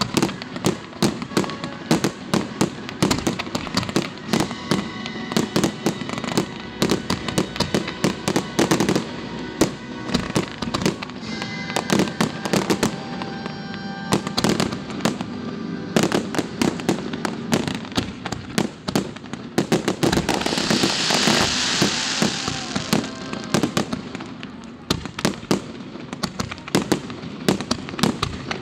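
Fireworks display: a rapid, continuous run of aerial shell bangs and crackles as comets rise and shells burst. About two-thirds of the way through there are a few seconds of dense, high hissing crackle.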